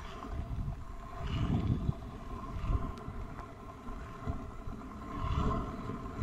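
Kick scooter's small hard wheels rolling along an asphalt street, with wind gusting on the microphone.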